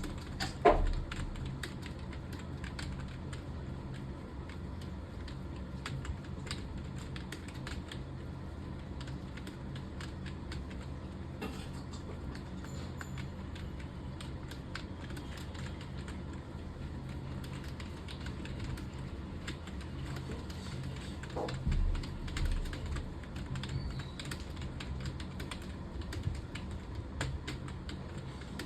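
Computer keyboard typing: a steady run of rapid, irregular keystrokes over a low hum. A brief falling squeak comes near the start, and a low thump about three-quarters of the way through.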